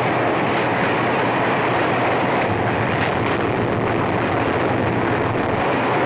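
Diesel-hauled freight train running at speed: a steady, unbroken noise of wheels on the rails.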